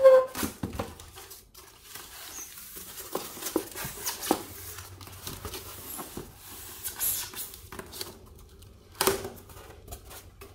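Styrofoam packing blocks being pulled apart and lifted off a monitor: short foam-on-foam scrapes and creaks, with a short squeak right at the start.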